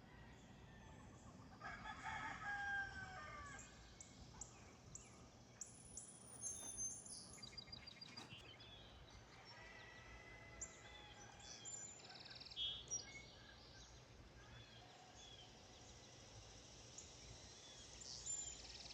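A rooster crowing once, faintly, about two seconds in, among scattered faint bird chirps.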